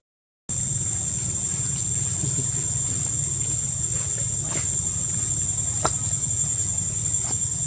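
Steady, high-pitched drone of insects over a low, even rumble, with a few faint ticks; the sound drops out for about half a second at the start.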